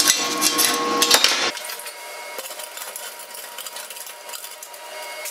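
Steel-rod hairpin table legs and hand tools clinking against one another and a steel welding table: a quick clatter of sharp metal knocks for about the first second and a half, then fainter scattered ticks.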